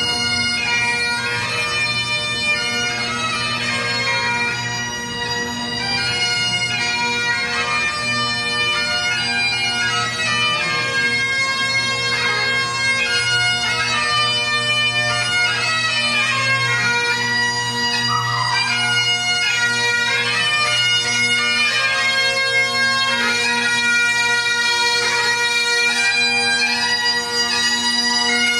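Great Highland bagpipes played by a group of pipers: steady drones sounding under a moving pipe melody.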